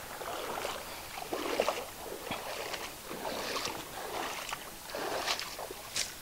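Water splashing and sloshing in repeated strokes about a second apart, as someone wades through shallow water.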